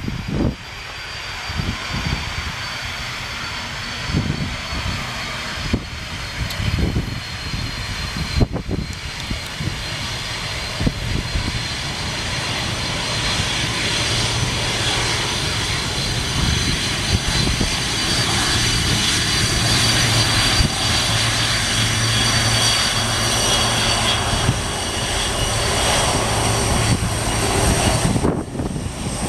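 Boeing 747's four jet engines whining steadily at low thrust as the airliner taxis past, growing louder through the second half, with low gusty buffeting in the first half.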